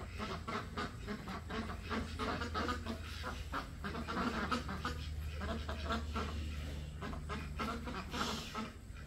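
Farm fowl calling: a dense run of short, repeated calls over a steady low hum.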